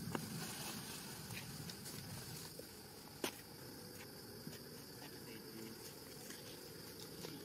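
Faint outdoor ambience of steady high-pitched insect buzzing, with a sharp click about three seconds in.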